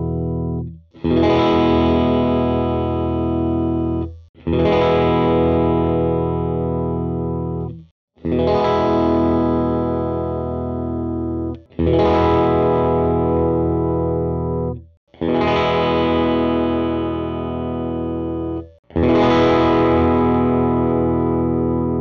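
Electric guitar chords strummed once and left to ring, six in turn, alternating between a Nash S-63 Stratocaster and a coil-split PRS 513 through a modelled Dr Z Maz 38 amp, on the in-between pickup positions: neck/middle, then middle/bridge. Each chord rings for about three seconds and is cut off before the next strum.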